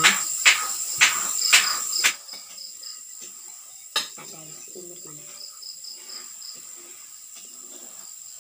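Crickets chirping steadily in a high pulsing trill. Over it, about five sharp clinks half a second apart in the first two seconds, and one more about four seconds in.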